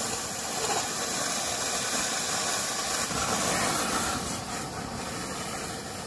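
Spring water running out of a bamboo pipe into a plastic water bottle and onto the ground: a steady, loud hiss of falling water that thins a little about four seconds in as the bottle is pulled away.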